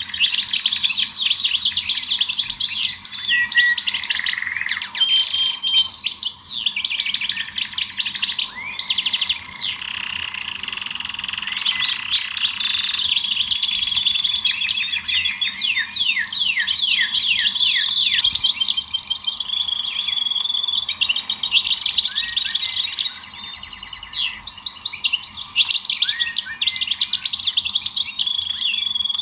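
Several small songbirds chirping and singing at once: a dense, overlapping chorus of quick high chirps and trills. It starts suddenly.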